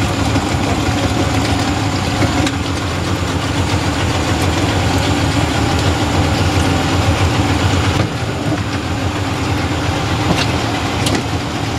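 Engine running steadily close by, with a slight drop in level about eight seconds in.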